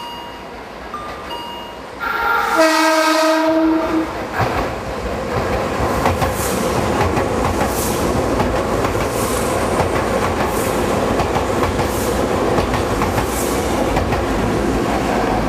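Tobu 100 series Spacia electric express train sounding a short horn blast with several notes at once, about two seconds in, as it comes through. Then the steady rush of the train passing at speed, with wheel clicks over the rail joints about every second and a half.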